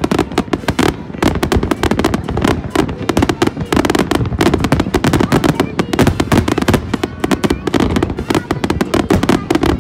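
Aerial fireworks bursting in rapid succession: a dense, unbroken barrage of bangs and crackles, many each second.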